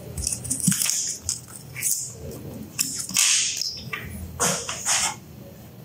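Blister pack of a coin-cell battery being picked at with a fingernail and peeled open: scattered crinkles and scratches, with two louder hissing rustles about three and four and a half seconds in.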